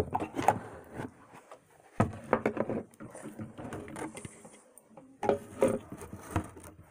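Close handling sounds next to the microphone: three bursts of clicks and rubbing, each lasting about a second.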